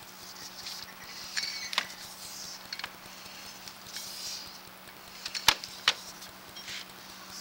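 Sewer inspection camera's push cable being fed down a drain line: scattered clicks and light scraping, with two sharper clicks about five and a half seconds in, over a steady low hum.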